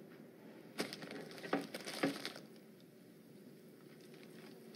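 A cheeseburger in its paper wrapper being picked up and bitten into: a few sharp crackles and rustles of the wrapper and bun about one to two seconds in, then quiet room tone.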